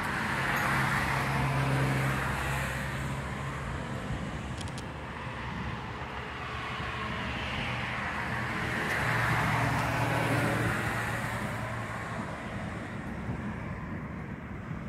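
Two vehicles passing by on a street, one after the other. Each brings a swell of tyre noise with a low engine hum that rises and fades, the first peaking about two seconds in and the second around nine to ten seconds in.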